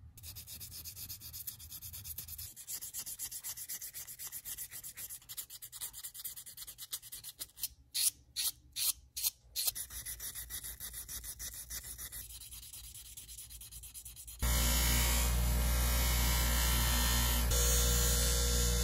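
Metal chuck shell of a Stanley egg beater drill being rubbed back and forth by hand on fine-grit sandpaper: quick scratchy strokes, with a few louder ones about eight seconds in. About fourteen seconds in, a much louder bench grinder with a polishing wheel cuts in, its motor running with a steady hum as the shell is buffed.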